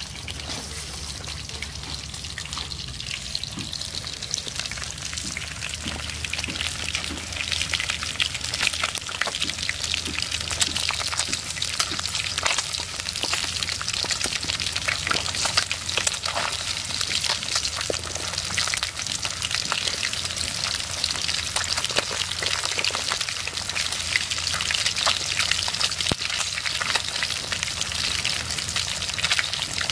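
Whole catfish frying in hot oil in a pot: a steady sizzle full of small spitting crackles, growing louder over the first several seconds.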